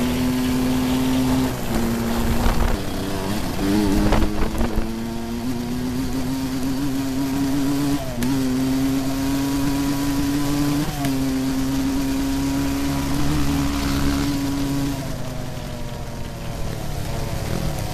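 A 2004 Yamaha YFZ450's single-cylinder four-stroke engine, heard on board while riding, running at a steady high pitch. Its note steps briefly at a few gear changes. About fifteen seconds in the rider backs off and the engine note falls and fades.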